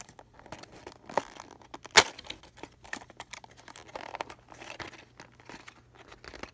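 Clear plastic blister packaging of a crankbait lure crinkling and clicking as it is handled and turned in the hands, with one sharp plastic snap about two seconds in.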